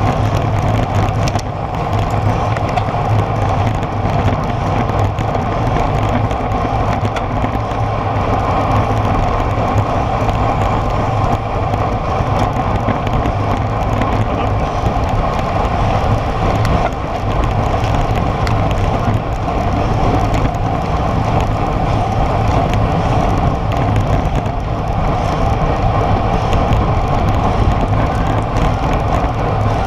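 Wind rushing over a handlebar-mounted camera on a road bike at about 40–50 km/h, with tyre and road rumble coming through the mount. Loud and steady.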